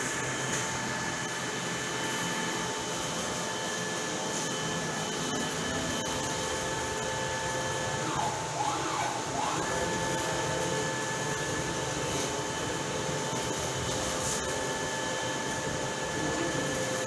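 Gantry concrete 3D printer running: a steady mechanical hum with several whining motor tones. About eight seconds in, the whine briefly dips in pitch and rises again.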